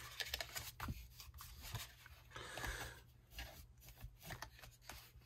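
Bone folder rubbing along the folds of white card stock, a faint dry scraping in several short strokes, with light rustling and ticking of the card as it is handled.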